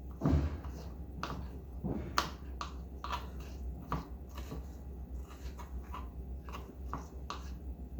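Knife chopping a Scotch bonnet pepper into small pieces on a cutting board: irregular sharp taps, roughly one or two a second, some louder than others, over a steady low hum.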